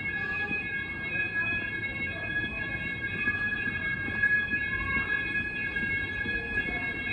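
Apollo XP95 fire alarm sounder sounding a continuous, steady high-pitched tone: the alarm is activated and has not yet been reset. A low rumble of background noise runs beneath it.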